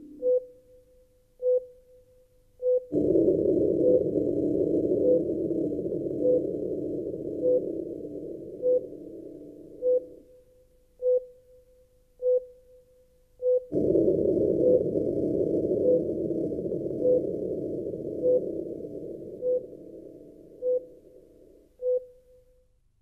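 Steady electronic beeps about every 1.2 seconds, like a hospital heart monitor tracking a slow pulse. Twice a low droning hum comes in suddenly under the beeps and fades away over several seconds. The beeps stop just before the end.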